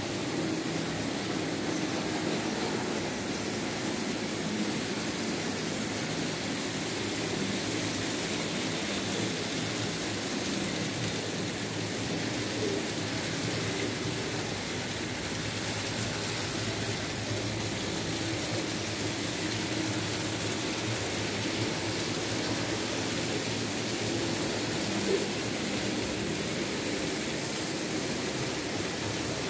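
Märklin H0 analog model train running along the track: a steady hum of the locomotive's motor with the rolling rumble of the wheels on the rails, and one sharp click near the end.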